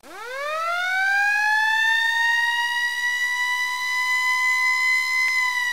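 A siren winding up from a low pitch to a high, steady wail in about a second and a half, then holding that pitch.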